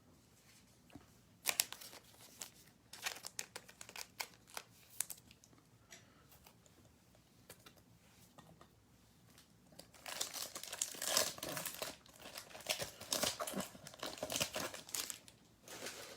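Wrapper of a Topps baseball card pack crinkling and tearing as it is handled and opened, in two spells of crackling with a quiet stretch of several seconds between them.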